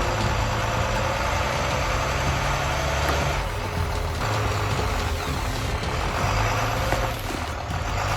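Large vehicle engine running, a steady low drone with rough noise above it.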